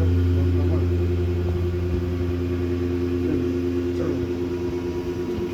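Vacuum pump of a double-chamber vacuum packing machine running with a steady low hum, easing slightly in loudness as it goes.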